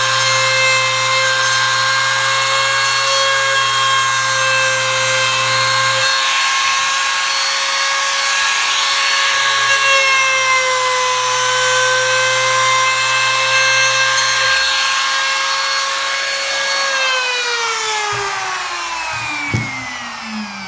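A Makita trim router runs at a steady high whine while its bit carves decorative grooves into wood, with a cutting hiss under the tone. About seventeen seconds in it is switched off, and the whine falls steadily in pitch as the motor spins down.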